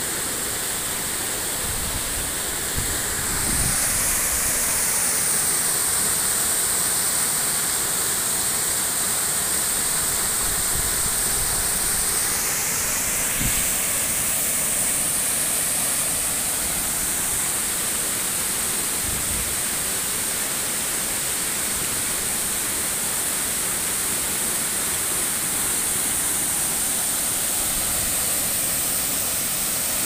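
Steady rush of a waterfall pouring into its pool, growing a little louder about three or four seconds in.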